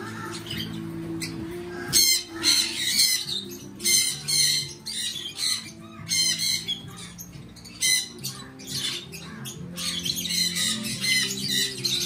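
Conures squawking: loud, harsh calls in short runs several times over, with background music underneath.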